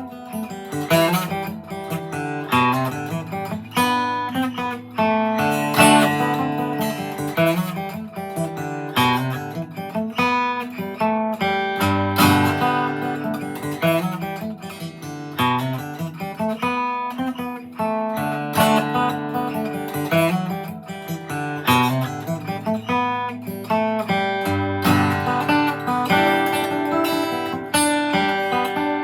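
2002 Gibson J45 slope-shoulder dreadnought acoustic guitar played solo, picking a quick tune of single notes mixed with strummed chords.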